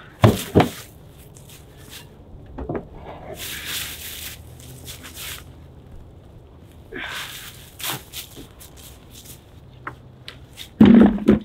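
Log rounds being unloaded from a hand cart and stacked on a woodpile. Two heavy wooden knocks come near the start, scraping and crunching footsteps on snowy ground follow, and near the end a log goes down on the pile with a loud wooden thump.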